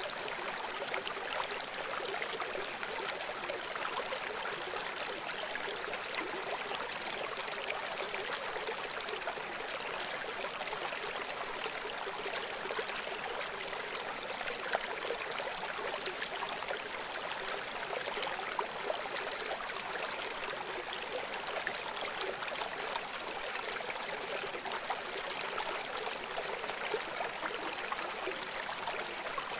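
Steady rushing of flowing water, like a stream, even and unbroken throughout, thin and hissy with no deep rumble.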